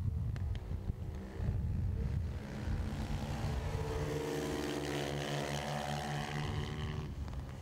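A 125 cc racing pit bike engine running hard as the bike goes by the camera, its pitch bending down and up with speed and throttle through a corner.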